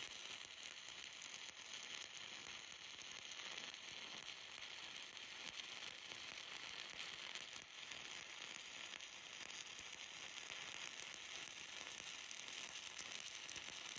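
Stick welding arc of a 1/8-inch 7018 rod burning steadily on a vertical-up weld: a faint, even sizzle with no breaks.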